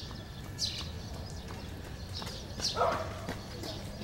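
Small birds chirping in short, high, falling notes, several times over, with a single short dog bark about three seconds in. A low steady rumble runs underneath.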